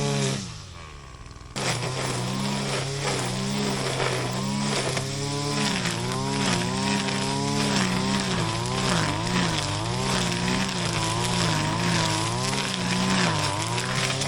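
Shindaiwa RK3026-PT 25.4cc two-stroke brush cutter engine running at high speed, its pitch wavering up and down as it cuts grass. Just after the start the engine falls in speed and gets quieter, then is abruptly back at full speed about a second and a half in.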